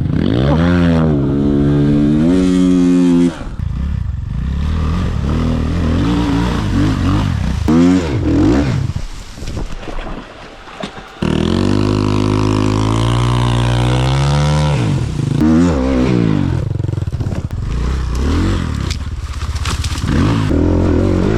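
Enduro motorcycle engines revving hard, their pitch climbing and falling again and again, with sudden breaks where the sound changes abruptly.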